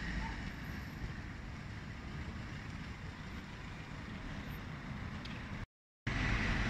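Outdoor street ambience: a steady low rumble of road traffic mixed with wind on the microphone. The sound cuts out completely for a moment near the end.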